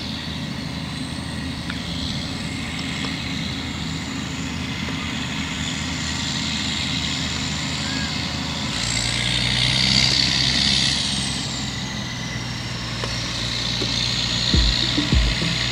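Claas Challenger 75E crawler tractor's Caterpillar six-cylinder diesel running steadily under load while pulling a cultivator through stubble, with a high whine that rises and then falls about halfway through. A steady music beat comes in near the end.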